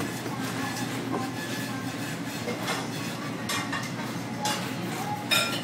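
Kitchen background: a steady rumble with scattered clinks and clatters of dishes and utensils, and a sharper clatter near the end.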